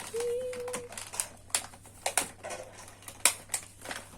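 Hands handling a boxed plastic toy set's packaging: irregular sharp clicks and taps, the loudest a little past three seconds in, after a short steady tone at the start.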